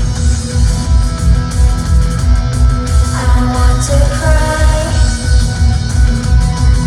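Live rock music played loud over an arena sound system: a heavy, evenly pulsing beat under sustained guitar and vocal lines.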